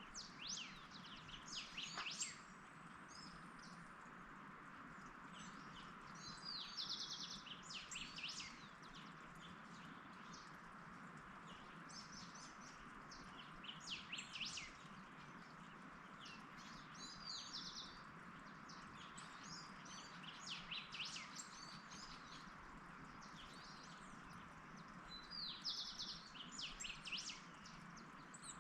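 Wild birds singing and chirping in short bursts of rapid notes every few seconds, over a faint steady background hiss.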